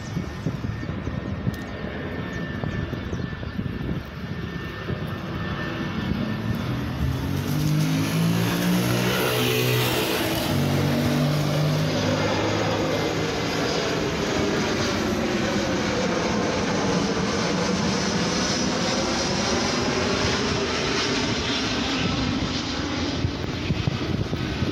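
An Airbus A320 airliner's jet engines roaring as it passes low overhead on final approach with its landing gear down. The roar swells about six seconds in and stays loud, with a slow sweeping, phasing sound as the plane goes over.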